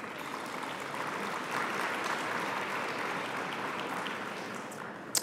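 Audience applauding, swelling over the first two seconds and then dying away. A short sharp click comes near the end.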